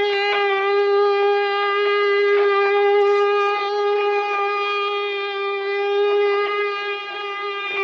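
Wooden ox cart (carro de boi) creaking as its axle turns, in one long, unbroken, high-pitched tone rich in overtones that holds a steady pitch and sounds like a funeral litany.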